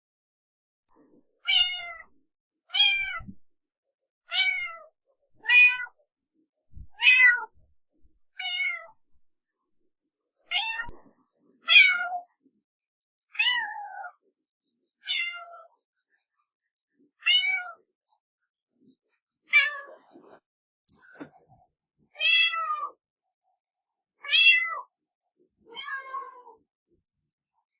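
Domestic cat meowing repeatedly: about fifteen short meows, each falling in pitch, with a second or two of silence between them.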